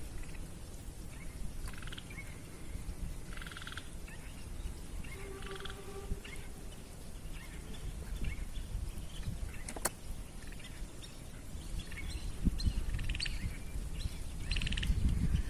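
Frogs calling in short pulsed trills, repeating every second or two over a low rumbling background, with a single sharp click about ten seconds in.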